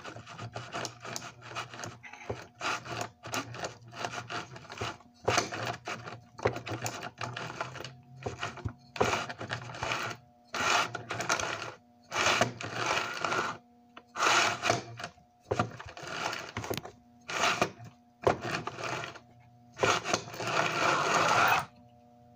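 The open-frame electric motor of a flood-damaged Lionel 1065 locomotive running in short, irregular bursts on the track, whirring and stopping over and over, with the longest run near the end, as it is test-run after being submerged. A steady hum sits underneath.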